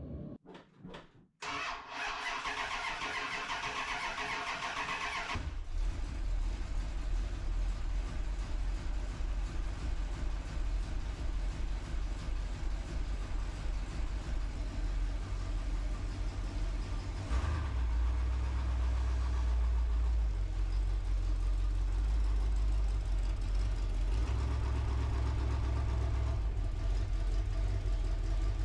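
Dodge Power Ram 250 pickup's engine being started: a few seconds of cranking, then it catches and settles into a steady low idle that grows a little louder past the middle.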